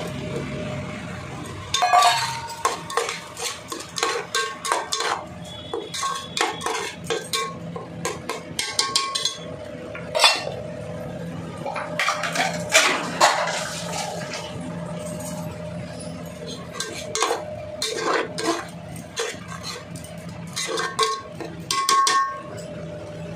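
A spatula scraping and knocking against a cooking pan while mushrooms are stirred into a spiced vegetable masala, in many irregular clinks and scrapes.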